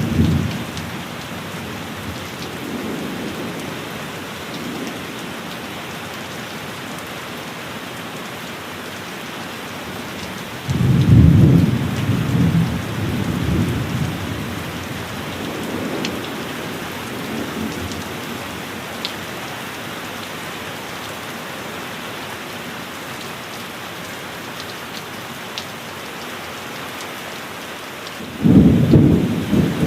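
Steady heavy rain with rolling thunder. A loud low rumble starts suddenly about a third of the way in and dies away over several seconds, and another rumble breaks near the end.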